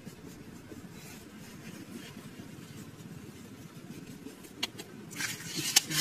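Low steady rumble with faint rustling as hands smooth sand; about five seconds in, a plastic bottle being handled gives sharp clicks and then loud crackling.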